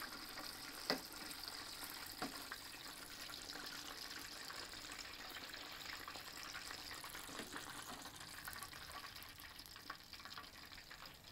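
Chicken drumsticks frying in hot oil in an aluminium pot: a faint, steady sizzle with fine crackle. Two sharp clinks come about one and two seconds in.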